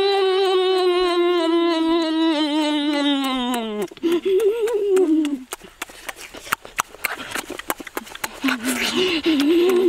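A boy's long, drawn-out closed-mouth hum of relish while eating, wavering and then sliding down in pitch about four seconds in. Shorter wavering hums follow, with a stretch of quick clicks in between.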